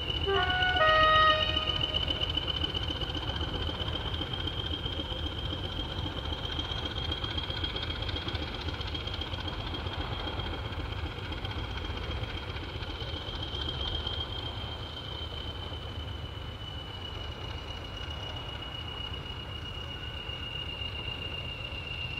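Diesel locomotive engine rumbling as it pulls slowly away, with a short two-tone horn blast, low note then high, about a second in. A steady high whine runs throughout.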